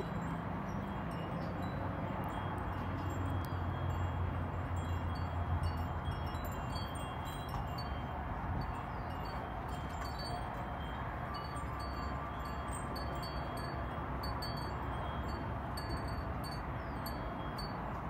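High, tinkling chime-like tones ringing on and off at the same few pitches over a steady low hum, with faint scattered clicks.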